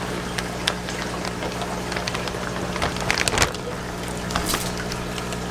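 Aquarium water trickling over a steady electrical hum, with scattered crackles and a short burst of splashing and rustling about three seconds in, as fish are let out of a floating plastic bag into the tank.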